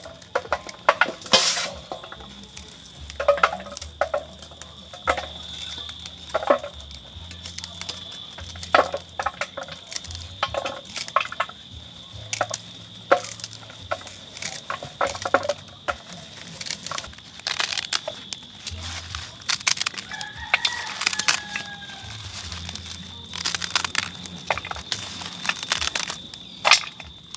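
Callaloo being stripped and cut with a knife into a steel bowl: a string of crisp snaps and clicks. A rooster crows in the background about twenty seconds in, over a steady high whine.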